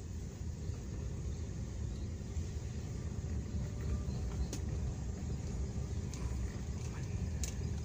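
Car driving slowly on a rough country lane, heard from inside the cabin: a steady low rumble of engine and tyres. Two faint clicks, one about halfway through and one near the end.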